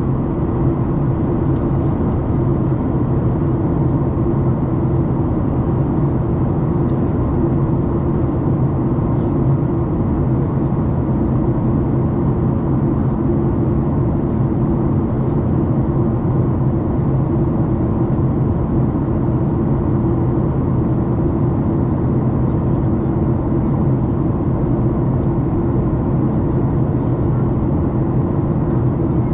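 Steady cabin noise of a Boeing 737 MAX 8 in descent, heard at a window seat beside the wing: its CFM LEAP-1B turbofan and the rushing air blend into an even roar with a steady low hum.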